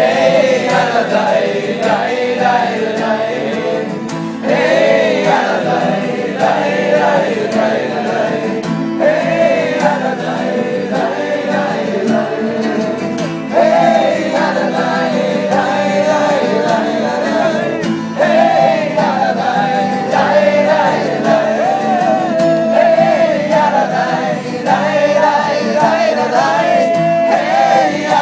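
A group of people singing together in a campfire sing-along, several voices carrying the melody at once without a break.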